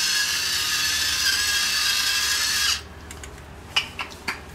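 Battery-powered electric salt mill grinding salt, a steady motor whine that cuts off suddenly a little under three seconds in. A few short clicks and knocks follow.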